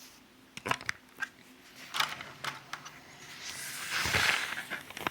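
Small plastic model-car parts being handled: several light clicks and taps, then a longer rustling scrape about three and a half seconds in, the loudest sound.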